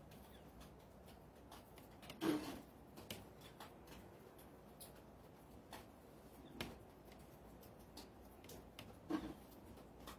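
Scattered light clicks and taps with three louder knocks, a few seconds apart, from objects being handled.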